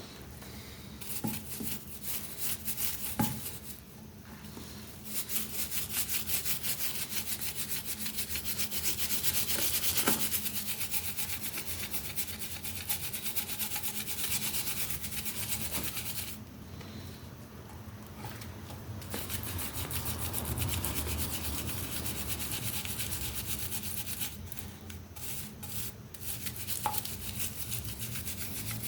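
Fast, steady scrubbing strokes, pausing briefly about two thirds of the way through, with a few light knocks.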